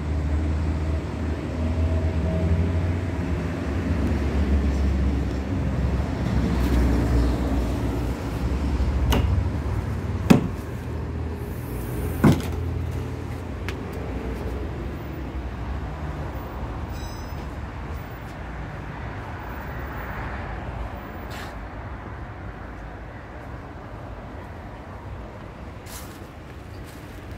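A vehicle engine running with a low rumble, loudest in the first nine seconds. Two sharp clicks follow, about ten and twelve seconds in, as the Carryboy hard tonneau cover over the pickup bed is unlatched and lifted open.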